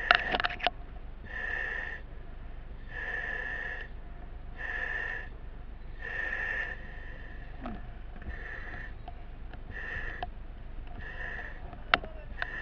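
Firefighter breathing through a breathing-apparatus mask: the regulator hisses with each breath, about one breath every second and a half to two seconds. There are a few knocks and clicks at the start and a sharp click near the end.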